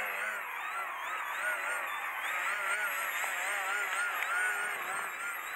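Small electric RC plane's SunnySky X2204 1800KV brushless motor and propeller whining as the plane hangs nose-up at low level. The pitch wavers up and down over and over as the throttle is worked.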